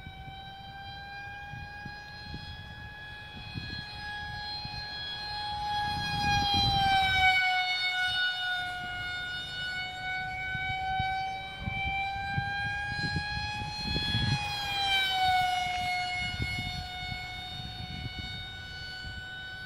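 Electric ducted fan of a Kyosho Tornado EDF model jet whining steadily in flight. The tone swells and drops in pitch twice, about seven and fifteen seconds in, as the jet makes passes.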